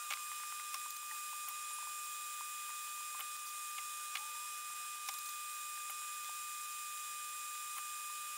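Faint steady high whine and hiss, with a few faint scattered ticks and small scratchy sounds of wires and parts being handled at the soldering bench.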